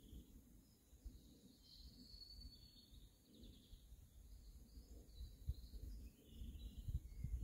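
Faint birdsong: small birds chirping and trilling. Under it, low gusty rumbling of wind on the microphone grows stronger near the end.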